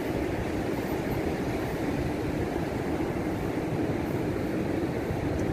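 Steady low rush of ocean surf breaking along the shore, mixed with wind rumbling on the microphone.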